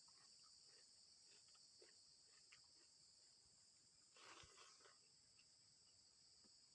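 Near silence with a faint, steady high-pitched insect chorus in the background, scattered faint clicks, and a brief rustle about four seconds in.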